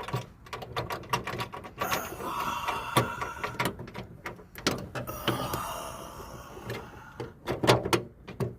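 Plastic third brake light housing being handled and pushed into place on a car: a run of irregular clicks and knocks with a scraping, rubbing stretch about two seconds in and a quick cluster of knocks near the end.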